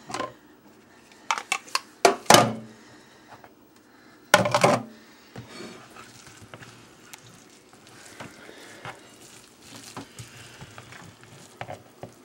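Several sharp plastic knocks as the lid is taken off a plastic microwave rice cooker, then quieter scraping and stirring as a plastic paddle turns cooked rice in the pot.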